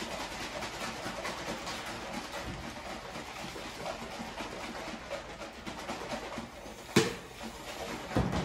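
Small plastic containers handled at a steel sink, with faint scattered ticks over a steady background hiss and one sharp click about seven seconds in.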